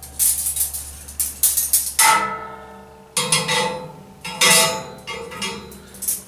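Steel grill skewers clinking and knocking against a metal skewer holder as they are set into its slots: a string of ringing metallic clinks, the loudest about two seconds in.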